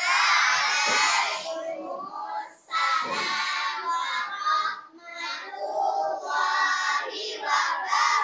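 A class of young schoolgirls chanting together in a sing-song unison, in a few drawn-out phrases: their reply to the Islamic greeting, "Wa'alaikumsalam warahmatullahi wabarakatuh".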